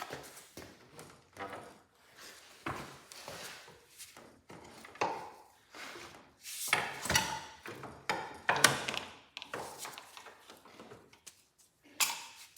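Irregular metallic clinks, knocks and scrapes of hand work on a Cub Cadet garden tractor's transmission and frame, with a few ringing metal pings.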